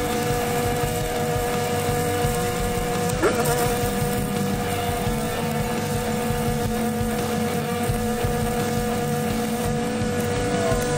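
Stick welding on truck-frame steel, the arc crackling steadily, over the drone of a running engine-driven welder whose pitch dips briefly about three seconds in. The arc goes out near the end.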